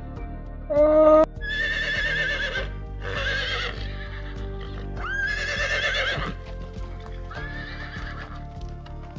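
Horses neighing: about four wavering whinnies, each about a second long, over background music.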